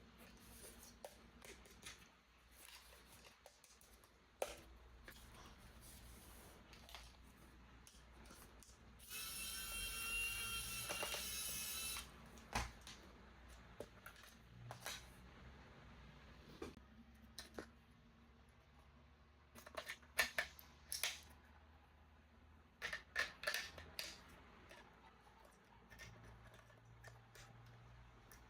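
Clicks and taps of hands handling a toy and its packaging. About nine seconds in, a louder steady buzzing whine lasts about three seconds, and there are clusters of sharper clicks near the end.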